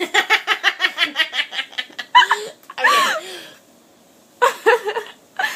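A woman laughing hard: a fast run of laugh pulses, about six a second, then a few longer, higher-pitched laughs with a short break before the last one.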